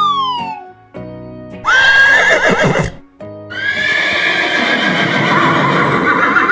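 Horse whinnying twice, a short cry about two seconds in and a longer one from about three and a half seconds on, over children's background music. It opens with a falling cartoon slide-whistle effect.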